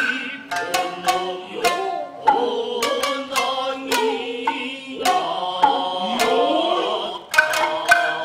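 Nagauta stage music: a singer's sliding vocal line over shamisen, with frequent sharp percussive strikes.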